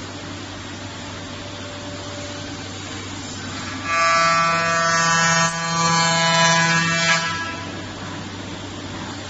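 Spindle of a 5-axis CNC router cutting solid wood: a steady machine hum, with a louder steady pitched whine from about four to seven seconds in.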